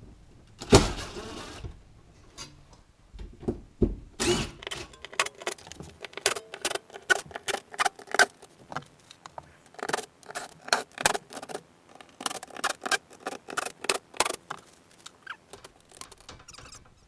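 Irregular light clicks and clinks, several a second, from hand tools and loose screws as screws are worked out of a motorhome window frame, after a thump and a short rustle about a second in.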